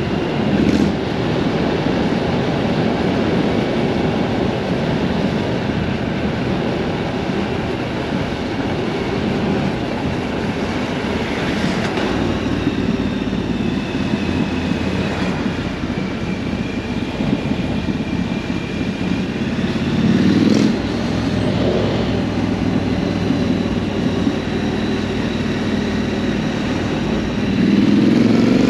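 Triumph Scrambler 900's parallel-twin engine running on the move, with wind rushing over the microphone. The engine pulls harder about twenty seconds in and again near the end.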